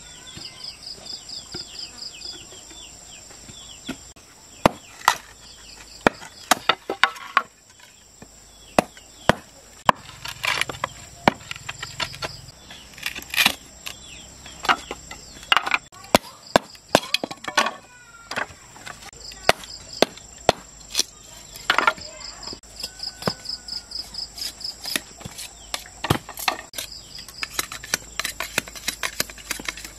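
Crickets chirping in short repeated pulse trains over a steady high insect buzz. Irregular sharp knocks and chops, some in quick runs, of hand work on bamboo run through it.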